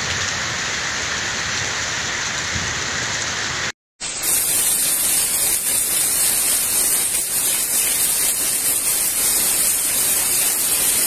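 Steady rain falling, with a hard cut about four seconds in to a louder, hissier stretch of the same downpour.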